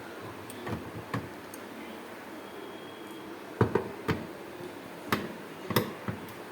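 A series of short, sharp knocks and clicks, about eight in all, irregularly spaced and loudest about three and a half seconds in, over a steady hiss.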